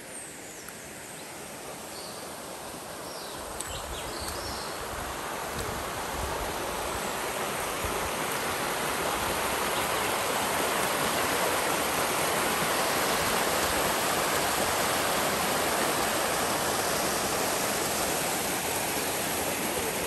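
Small river cascade rushing over rock, a steady noise of running water that grows louder over the first ten seconds or so and then holds steady.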